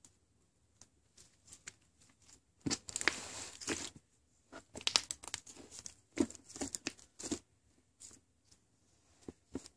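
Foam-bead slime squeezed and stretched by hand, giving irregular crackles, pops and squishes in uneven bursts, fainter at the start and near the end.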